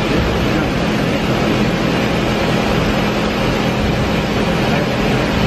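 Doosan DBC130II CNC horizontal boring mill running: a steady machine hum with a low drone and an even whirring hiss over it.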